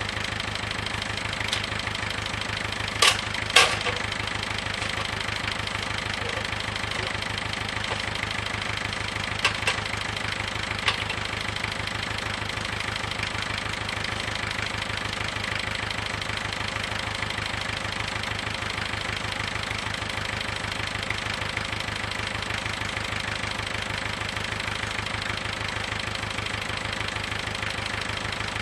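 An engine running steadily, with a few sharp knocks about three seconds in and again around ten seconds in.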